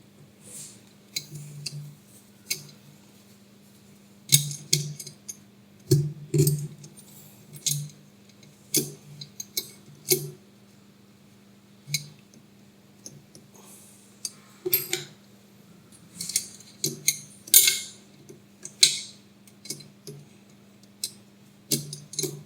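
Small metal parts and hand tools clinking, tapping and scraping at irregular moments while the support for the free end of a Z-axis screw rod is screwed into place, over a faint steady hum.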